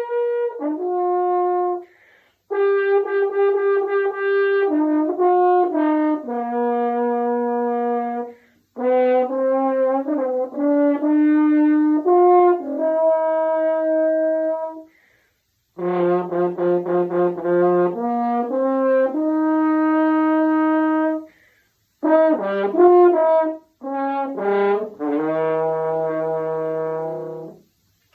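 French horn played solo: about six melodic phrases of held and moving notes, reaching down to low notes near the ends of some phrases, with short breath pauses between phrases.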